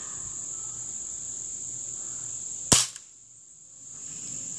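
A single shot from a Daisy BB gun: one sharp crack about two and a half seconds in.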